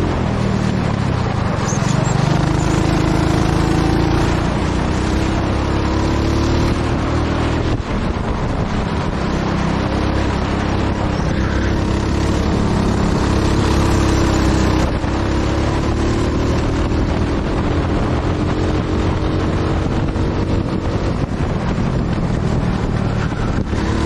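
Go-kart engine running hard, its pitch climbing and falling again and again as the kart speeds up and slows.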